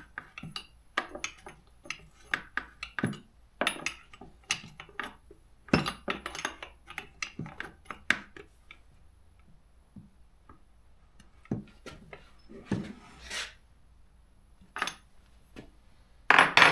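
Hand tools and small metal chainsaw parts clinking, tapping and knocking irregularly on a workbench during reassembly, with a brief hiss late on and a louder knock just before the end.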